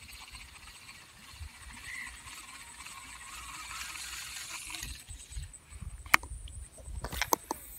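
Handling noise from a fishing rod and baitcasting reel: several sharp clicks and knocks in the second half, with low rumbling wind or hand rubbing on the microphone. Before that there is a faint steady hiss.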